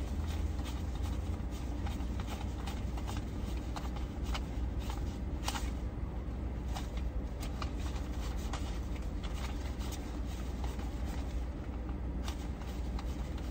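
Paper banknotes being counted by hand, each bill flicked with a short crisp snap in an irregular run, over a steady low rumble.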